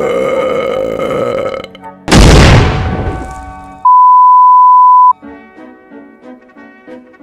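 A string of loud edited noises: a harsh sustained rasping sound for about a second and a half, then a sudden very loud blast that fades out, then a steady high beep lasting just over a second, the test tone that goes with TV colour bars. Quiet orchestral music comes back after the beep.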